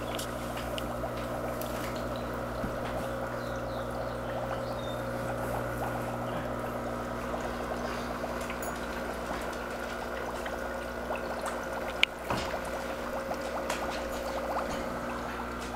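Aquarium filter water pouring and trickling steadily into the tank, over a steady low pump hum. A single sharp click about twelve seconds in.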